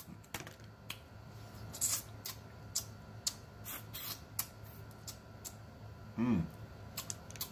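Boiled crawfish shells cracking and snapping as they are pulled apart by hand, mixed with close-up sucking and smacking from eating them, in a run of irregular sharp clicks. A brief hum from the eater about six seconds in.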